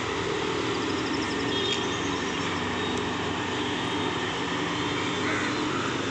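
Steady hum of city traffic, an even, unbroken wash of noise with a few faint high chirps about a second and a half in.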